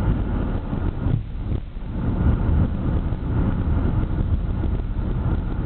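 Skateboard wheels rolling over street pavement: a steady low rumble mixed with wind on the microphone, easing briefly about a second and a half in.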